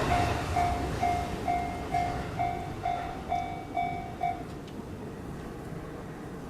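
Japanese level crossing's electronic warning bell dinging about twice a second, then stopping a little over four seconds in as the crossing clears. Under it the rumble of a just-passed train fades away.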